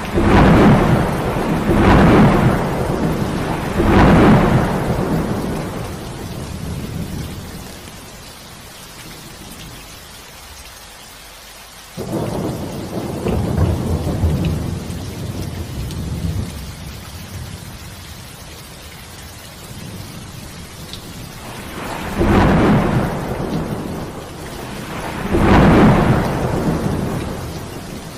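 Thunderstorm: steady heavy rain with repeated rolls of thunder rumbling over it. Three rumbles come in quick succession at the start, another begins abruptly about halfway through, and two more swell near the end.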